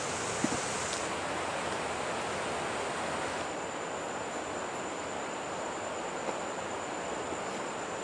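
Steady rushing outdoor noise with a faint, thin high whine over it, and one soft knock about half a second in.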